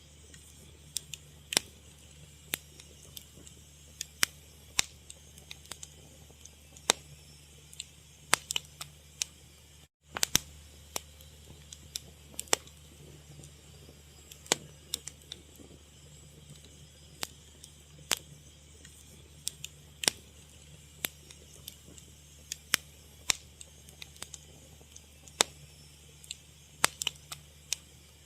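Wood fire crackling: irregular sharp pops and snaps, scattered unevenly, over a low steady hum. The sound drops out for an instant about ten seconds in.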